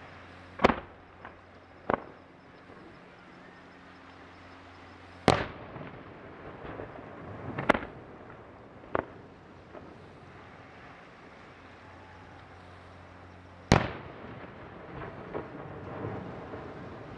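Aerial firework shells launching and bursting one at a time: single sharp bangs a few seconds apart, the loudest about a second in, about five seconds in and near the end, with fainter pops between them.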